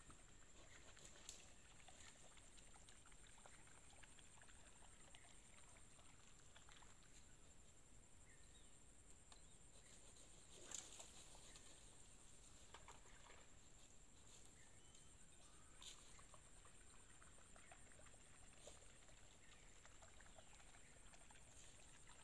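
Near silence: faint background hiss with a steady high, thin tone and a few soft clicks.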